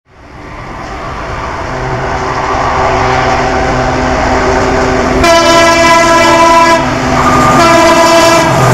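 Diesel locomotive's multi-tone horn sounding two long blasts over the rumble of an approaching train. The first blast comes about five seconds in and the second starts near the end. The train noise rises from silence over the first two seconds.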